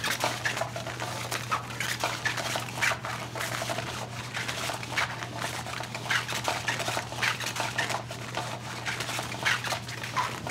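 Battery-powered Cat's Meow cat toy running: the wand moves around under its nylon skirt with a continuous irregular crackly rustling and scratching over a steady low motor hum.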